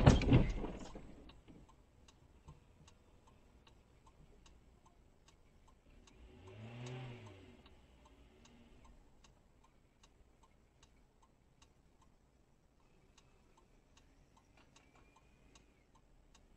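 The end of a low-speed car collision: the crunch of the impact dies away over about the first second. Then faint, steady ticking at about two to three ticks a second, with a car engine revving up and back down once around seven seconds in.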